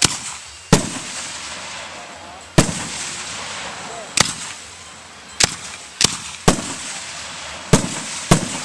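Aerial fireworks bursting overhead: about nine sharp bangs at uneven intervals of a fraction of a second to two seconds, each trailing off in a fading rumble and hiss.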